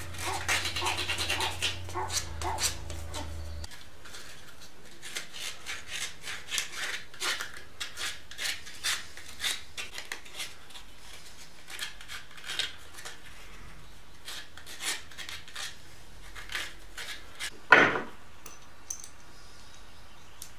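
Workshop handwork on wood: irregular rubbing and scraping strokes, with one louder stroke near the end. A small motor hums under the strokes for the first few seconds and stops about three and a half seconds in.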